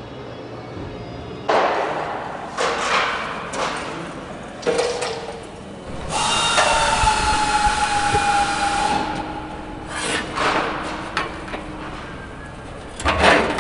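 Curved sheet-metal aircraft skin panels handled and set down on a steel workbench: a series of knocks and clattering rubs, with a scraping squeal of about three seconds midway as metal slides against metal.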